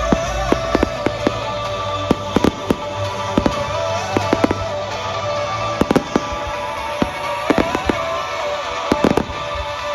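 Fireworks display going off: a rapid, irregular run of sharp bangs and crackling reports, some in quick clusters, over music playing from the show's sound system, with a low rumble that fades about six seconds in.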